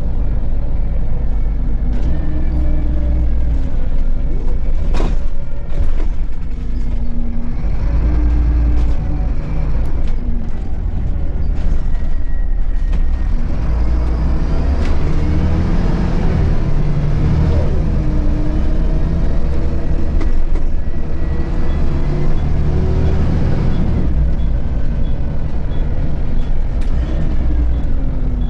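Onboard sound of a Volvo B7RLE bus's six-cylinder diesel engine heard from inside the cabin: a deep rumble whose pitch rises and falls as the bus speeds up and slows, with rattles and knocks from the body and fittings.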